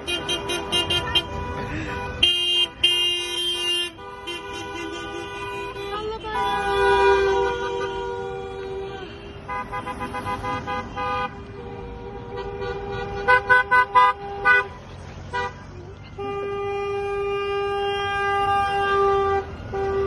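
Car horns of a passing convoy honking: runs of short, quick toots and long held blasts, from several horns at different pitches.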